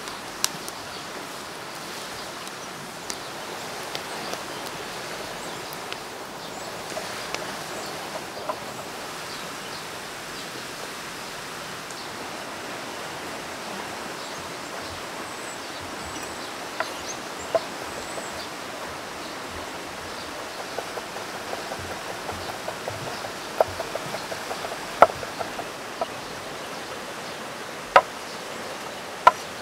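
Steady rush of a flowing river, with a wood fire crackling now and then at first. In the second half, sharp knocks of a chef's knife chopping garlic and herbs on a wooden cutting board, growing more frequent toward the end.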